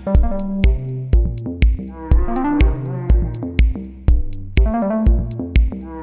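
Background electronic music with a steady drum-machine beat, about two kick-drum hits a second with hi-hat ticks between them, under a synthesizer melody.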